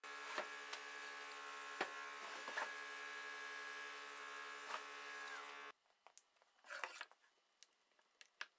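A steady electrical buzzing hum with a few light knocks of the wooden slab being handled. The hum cuts off suddenly about two-thirds of the way through, leaving only a few faint knocks.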